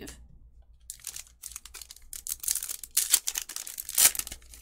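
Foil wrapper of a Donruss Optic basketball card pack crinkling and tearing as it is opened by hand. A run of crackles starts about a second in and is loudest near the end.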